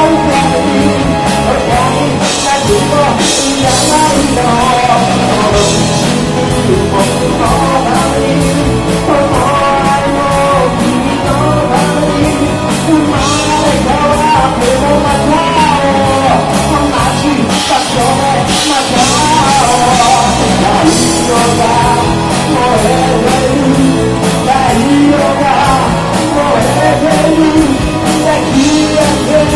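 Live rock band playing a song: a lead singer over guitars, bass and drums, with cymbal crashes.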